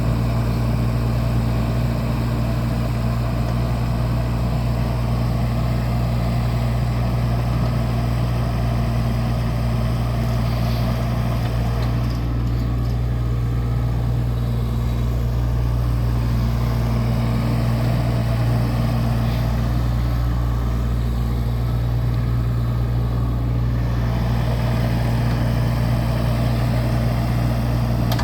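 Diesel engine of a 2015 Case CX17B mini excavator running steadily with an even low hum that holds the same pitch throughout.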